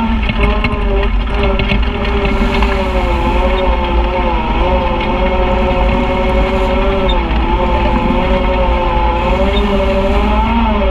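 Side-by-side UTV's engine and drivetrain running at steady trail speed, heard from on board, its pitch wavering gently up and down as the throttle eases and picks up over the muddy ruts.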